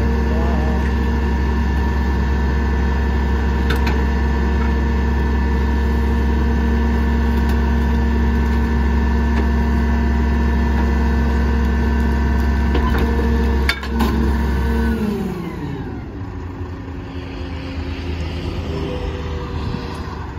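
Leach Sanicruiser rear-loader garbage truck's engine held at steady raised revs, driving the hydraulics while a dumpster is emptied and packed. A sharp knock about 14 seconds in, then the revs fall away to idle.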